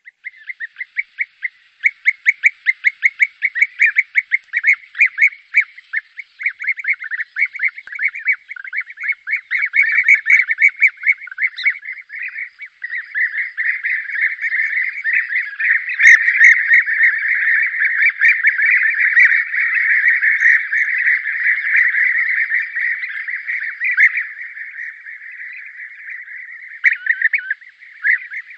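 A flock of European bee-eaters calling: quick repeated rolling calls at first, thickening into a dense overlapping chorus in the middle and thinning again near the end. This is a lure recording for hunting bee-eaters.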